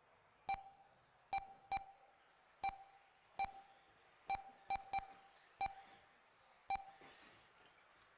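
Ten short electronic beeps at irregular intervals, all the same pitch, from a race lap-timing system sounding as RC cars cross the timing line.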